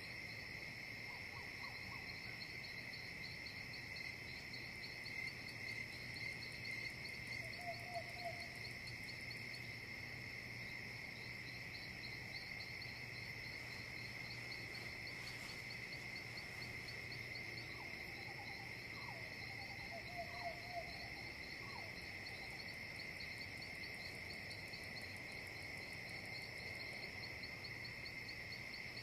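Outdoor nature ambience: a steady chorus of insects trilling, with a few short animal calls about eight seconds in and a cluster of them about two-thirds of the way through.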